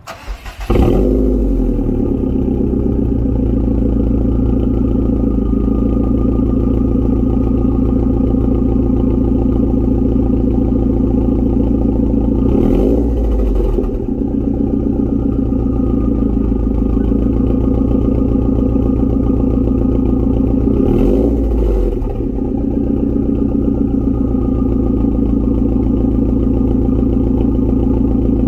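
2021 Subaru WRX STI's turbocharged 2.5-litre flat-four, breathing through a 3-inch catted downpipe and AWE Touring cat-back exhaust, cranking and catching in under a second, then settling into a steady warm idle. Twice the pitch briefly rises and falls, about halfway through and again later, as the throttle is blipped.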